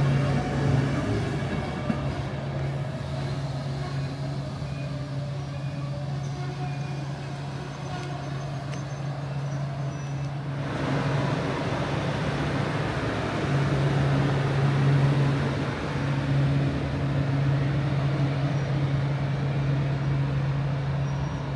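Electric commuter train moving through the station: a steady low hum, with the rumble of wheels on rails growing fuller about halfway.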